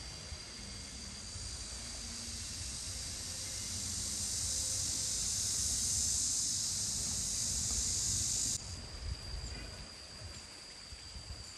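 Insects buzzing outdoors: a high, hissing drone that swells over several seconds and then stops abruptly, over a steady thin high whine and a low rumble.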